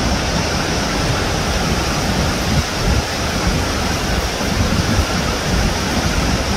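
Steady, even hiss with an uneven low rumble underneath, unchanging throughout.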